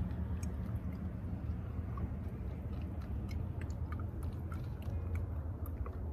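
Small, scattered clicks and rustles of hands handling plastic engine-bay parts around a Jeep's air intake hose, over a steady low hum.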